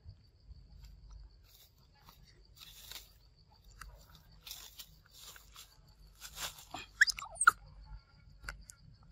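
Young macaque biting and chewing a ripe mango: a string of wet, smacking bites and slurps, with two loud, sharp squeaks a little after seven seconds. A faint steady insect ticking runs underneath.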